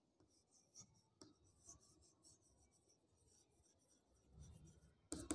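Chalk writing on a chalkboard: faint scratching of the chalk strokes, with a few light taps in the first two seconds.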